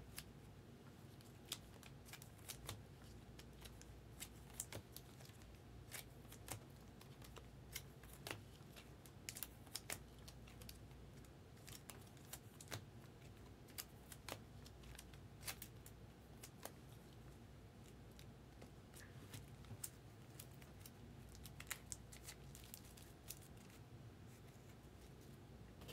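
Trading cards being handled and sorted by hand: irregular light clicks and snaps as cards are flicked, tapped and laid down, over a low steady hum.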